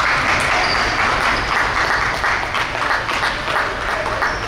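Gymnasium crowd noise: many people clapping and cheering at a basketball game, a dense steady din.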